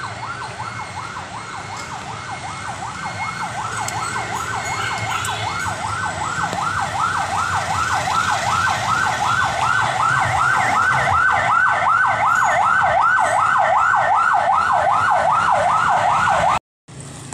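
Emergency vehicle siren in a fast yelp, its pitch sweeping up and down about three times a second. It grows louder through the first half, holds steady, then cuts off abruptly near the end.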